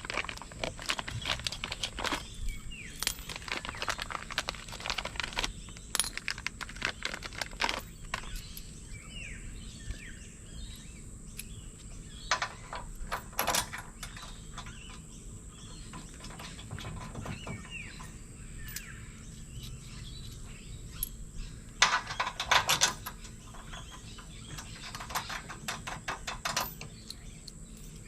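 Intermittent metallic clicks and knocks of hand tools working on hitch bolts, with a quick run of rapid clicks about three quarters of the way through. Birds chirp in the background.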